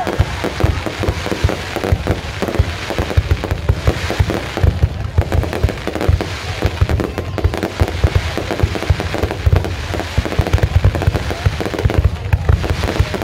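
Fireworks display: aerial shells bursting in a rapid, continuous barrage of bangs, many overlapping each other.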